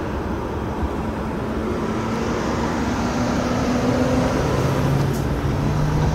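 A motor vehicle engine running steadily, its low engine tone growing louder in the second half.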